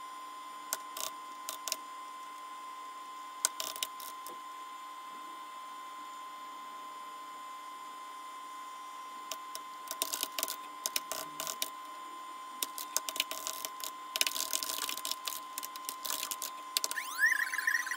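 Keystrokes on a computer keyboard: a few isolated clicks, then fast bursts of typing in the second half, over a steady faint hum. Near the end a computer beep starts, rising in pitch and settling into a warbling tone.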